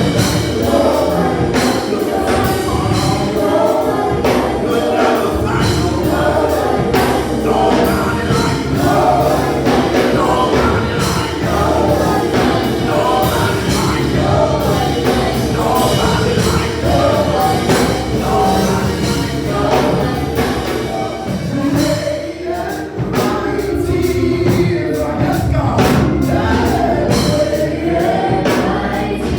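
Church choir singing gospel music with band accompaniment and a steady beat.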